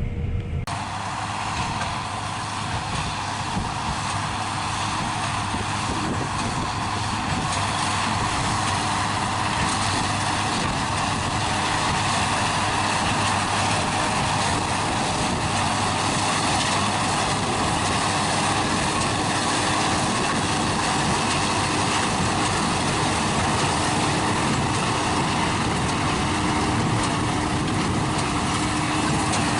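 Farm machinery running steadily in the field: a continuous mechanical drone with a steady hum, starting abruptly just under a second in.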